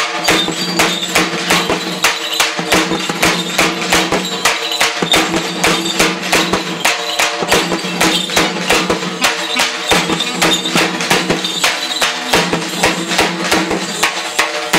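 Folk drum music: drums struck in a fast, even beat of about four strokes a second over steady sustained pitched tones.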